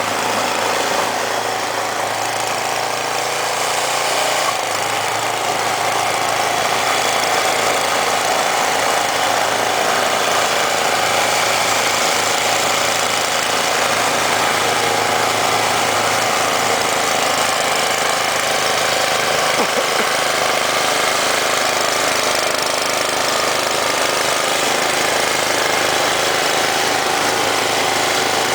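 A 10 hp Tecumseh Snow King OHV engine on a Toro Powershift 1028 two-stage snowblower, running steadily and loud throughout.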